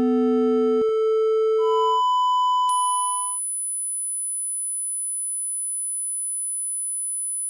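Pure electronic sine-wave tones stepping up in pitch, each about a second long and overlapping the next. Near the middle they give way to a steady, very high-pitched test tone that holds unchanged.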